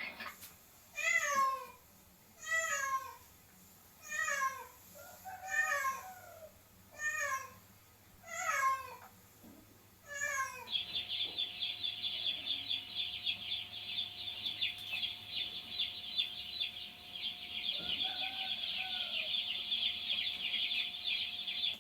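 Domestic cat meowing, seven separate calls about a second and a half apart, each falling in pitch. From about halfway on it gives way to a steady, dense, high-pitched chattering sound.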